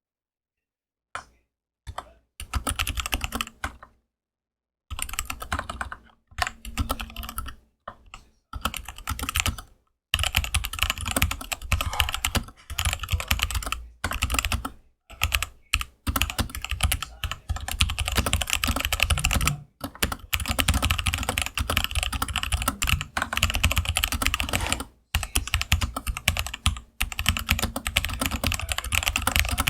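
Keychron K8 mechanical keyboard with Gateron Brown switches, a foam silencer pad in the case and rubber O-ring dampeners under the keycaps, being typed on. A few single keystrokes come first, then short bursts of typing with pauses, then fast, steady typing from about ten seconds in, broken by a couple of brief pauses.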